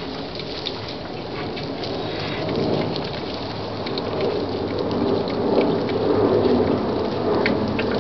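Airplane passing low overhead: a low rumble that swells louder from about two and a half seconds in.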